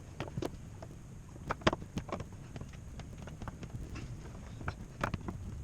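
Scattered light knocks and clicks of a wooden galley cabinet being handled, opened and shut, with a few sharper knocks about one and a half to two seconds in and again near the end.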